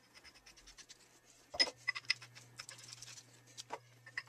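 Galvanized steel pipe being screwed by hand into a threaded T fitting: a run of small metallic ticks and clicks as the threads turn, with a louder click about one and a half seconds in and another near the end.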